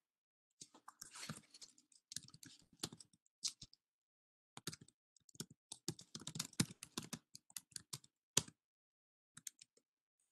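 Faint typing on a computer keyboard: a run of irregular key clicks, with a short pause about four seconds in and a few last taps near the end.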